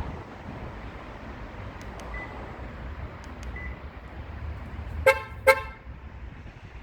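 Hyundai Grandeur HG's horn giving two short chirps in quick succession, the confirmation chirps of an aftermarket remote-start alarm being operated. Wind rumbles on the microphone throughout, with a few faint clicks and short beeps before the chirps.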